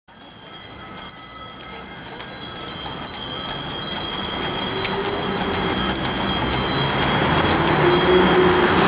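A two-horse brewery wagon approaching along a street, getting steadily louder: the metal fittings of the decorated harness jingle over a growing rumble of wheels and traffic.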